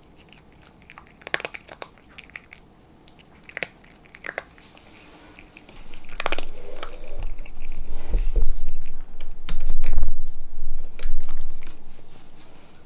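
A cat crunching its food from a ceramic bowl: scattered crisp crunches over the first few seconds, then a louder stretch of chewing with low rumbling knocks for about six seconds, loudest around eight and ten seconds in, fading out near the end.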